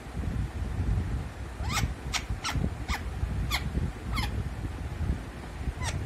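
Pet parrot giving a string of short, sharp rising calls, six in quick succession starting under two seconds in, then one more near the end, over a steady low rumble.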